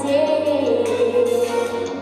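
A boy singing a song into a handheld microphone over instrumental backing, holding long notes that bend in pitch.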